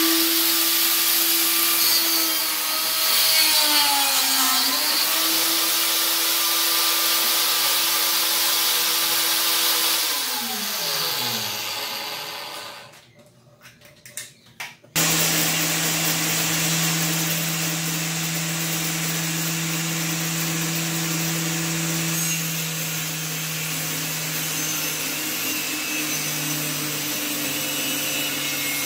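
Electric angle grinder in a sliding stand spinning up and cutting through plywood, its motor pitch sagging briefly as the disc bites, then holding and winding down to a stop. After a short quiet with a few clicks, the grinder runs again steadily, cutting plywood.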